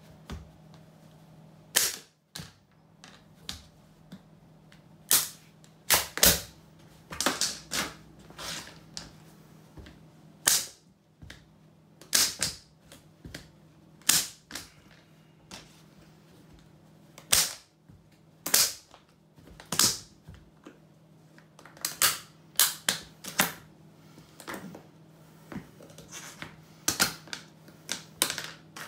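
Rubber-soled Cofra safety boots stomping on a hard plastic toy on a tiled floor: sharp plastic cracks and snaps, with clacks of loose pieces under the soles, coming irregularly about one or two a second.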